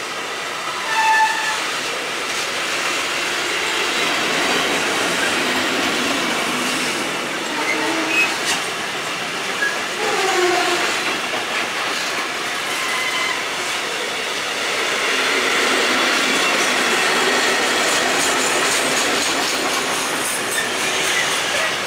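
Intermodal container wagons of a freight train rolling past, a steady rolling noise with brief wheel squeals and the clicks of wheels over rail joints.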